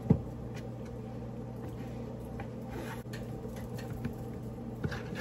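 Raw pork chops being dredged in flour in a metal baking pan: a thud just after the start as a chop is dropped into the pan, then soft patting and light taps, with another thud near the end. A steady low hum runs underneath.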